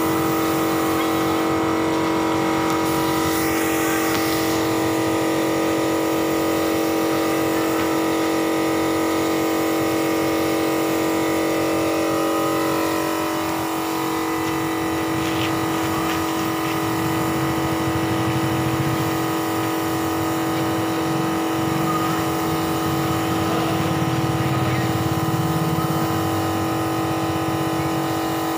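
Air compressor running with a steady, unchanging hum, with the hiss of a compressed-air paint spray gun spraying a matte finish.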